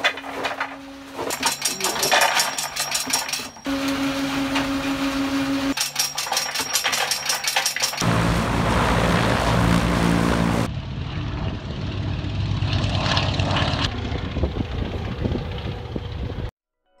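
Antonov An-2 biplane's nine-cylinder radial engine running in a series of cuts. It drones inside the cabin with a rapid clatter from the bait-dispensing drum, then runs loudest at full power on the takeoff roll about eight seconds in, then quieter as the plane climbs away overhead. It cuts off suddenly just before the end.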